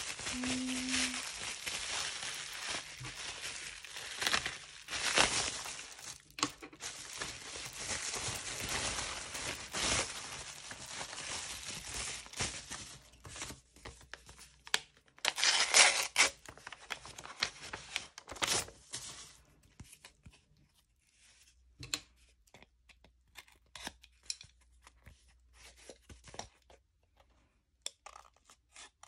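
Bubble wrap and paper packaging being handled, crinkling, rustling and tearing, with several louder tearing bursts, the loudest a little past halfway. In the last third it turns quiet, with only scattered light taps and rustles of paper and cardboard.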